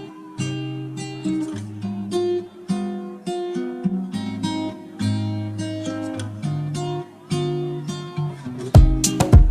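Background music: a plucked acoustic guitar melody, with heavier percussive beats coming in near the end.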